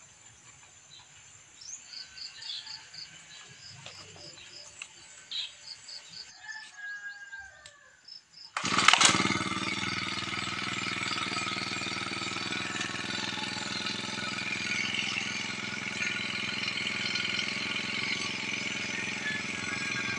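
Small petrol engine of a brush cutter (grass trimmer) starting about eight seconds in with a brief loud rev, then running steadily.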